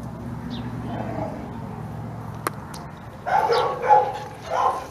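A puppy barking three short times in quick succession, with a sharp click shortly before.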